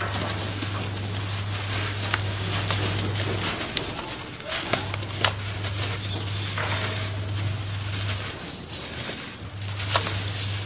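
Wet cement and sand mud and dry sand and ash crumbled by hand and dropped into a plastic tub: soft crumbling, sifting patter and a few sharper plops as lumps land. A low hum comes and goes behind it.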